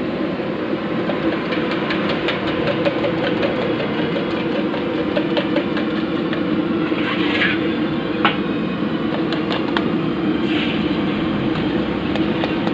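Steady roar of a gas wok burner under a large wok, with scattered short clinks of a steel spatula against the metal pan.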